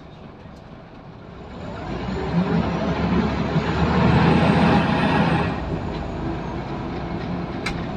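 Scania L94UB bus's diesel engine heard from inside the saloon, building up revs as the bus pulls away from standstill, with a faint high whistle rising and falling along with it. The engine drops back about five and a half seconds in and runs on more steadily, with two sharp clicks near the end.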